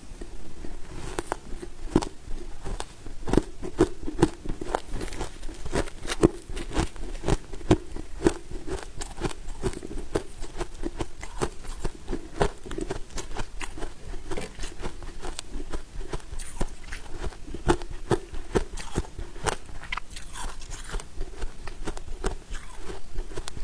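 Powdery freezer frost crunching as it is bitten and chewed: a dense, unbroken run of sharp, crisp crunches, several a second.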